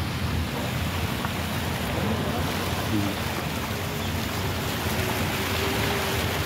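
Steady rushing noise of storm wind and floodwater flowing across a road.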